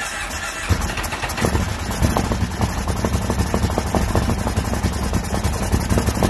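2005 Kawasaki Brute Force 750's V-twin engine running steadily, fed fresh gas treated with Seafoam to try to clear a fuel problem.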